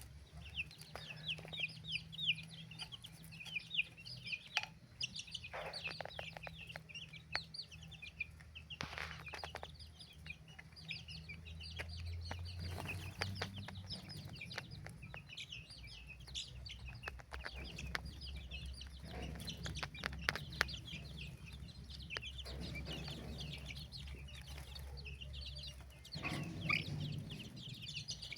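A crowd of young chicks peeping: many rapid, short, high-pitched chirps overlapping, thickest in the first few seconds. A steady low hum runs underneath.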